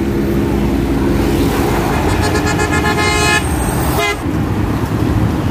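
A horn sounds steadily for about two seconds, starting about a second and a half in, over the steady running of a nearby motor vehicle's engine, with a short second toot near the end.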